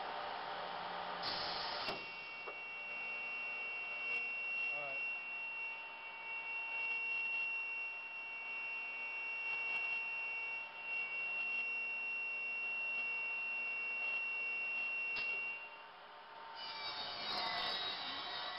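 Pistorius MN 200 double miter saw running with a steady high whine, then cutting into a piece of wood near the end, where the sound turns louder and rougher and the pitch wavers.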